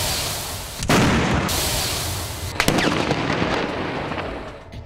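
Explosions: the fading rumble of one blast, then two more sudden blasts about two seconds apart, each dying away slowly into a rush of noise.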